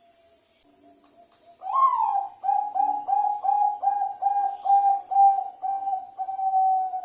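Zebra dove (Bangkok-type perkutut) cooing. A soft low coo comes first, then about a second and a half in a loud run of about a dozen short coo notes, ending on a longer drawn-out note. Crickets trill steadily behind it.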